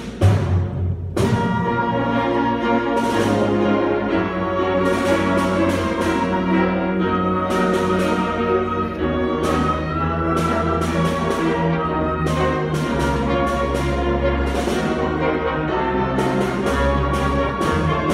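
Grand piano and orchestra playing a slow concertante movement: piano chords struck about once a second over sustained orchestral notes.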